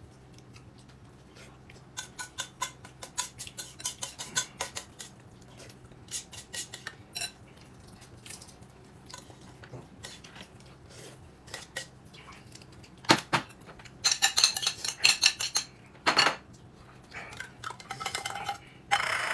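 Eating utensils clinking and scraping against a bowl during a meal: a run of quick light clicks, then a louder stretch of scraping and clatter with two sharper knocks about two-thirds of the way through.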